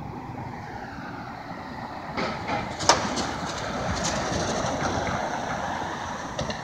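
City street traffic: a vehicle passing grows louder from about two seconds in, with a few sharp clicks and one loud clank just before three seconds.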